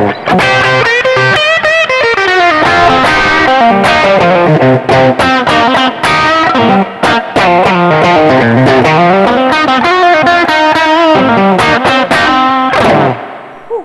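Tokai Goldstar Sound Strat-style electric guitar played on its bridge humbucker through a Roland Cube 30 amp on its drive sound: a busy overdriven phrase with some bent notes, ending shortly before the end and ringing off.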